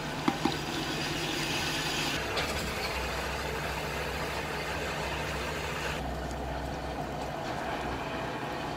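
Two quick knocks of a wooden spatula on a clay cooking pot, then a steady low engine-like drone under a hiss.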